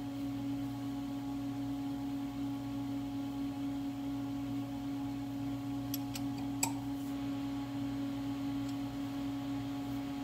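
Steady electrical-mechanical hum from a powered Haas CNC lathe standing with its spindle stopped. A couple of light metallic clicks come about six seconds in as the chuck is handled.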